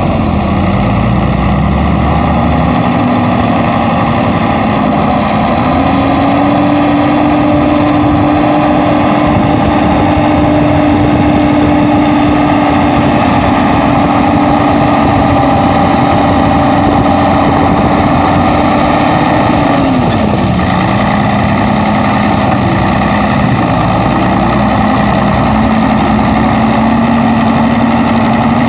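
Diesel engine of a Škoda 180 front loader running steadily. It revs up about five seconds in while the bucket digs into the manure pile, holds there, and drops back to a lower speed about twenty seconds in.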